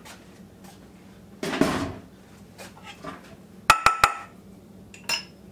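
A spoon and spatula working a thick filling in a stoneware baking dish: a short scrape about a second and a half in, then three quick clinks of metal against the dish that ring briefly, and one more clink near the end.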